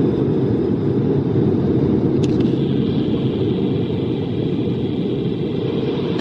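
Chance steel roller coaster train running on its track, heard as a steady low rumble echoing through a large indoor park hall. A faint high tone comes in about halfway, and there is one brief click a couple of seconds in.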